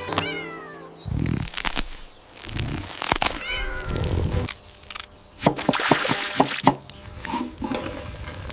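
A cat meowing twice, the first call falling in pitch, followed by a quick series of sharp clicks and knocks about halfway through.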